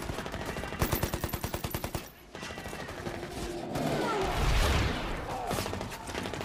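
Battle gunfire: a rapid machine-gun burst of about ten shots a second, lasting just over a second, then heavy continuous rifle and machine-gun fire that grows louder and deeper about four seconds in.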